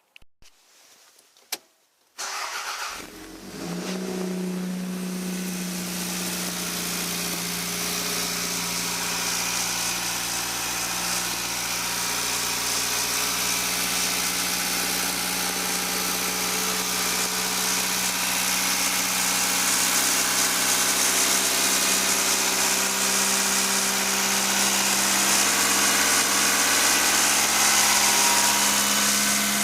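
Toyota MR2's 2-litre 16-valve four-cylinder engine starting about two seconds in after a couple of clicks, then idling steadily. It starts now that the blown 15-amp EFI fuse is replaced and the chafed O2 sensor wire that was shorting against the body is taped up.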